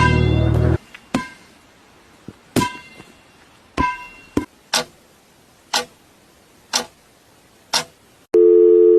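Music cuts off, then a run of sharp clicks, about one a second, some with a short ringing tone. Near the end a loud steady tone starts.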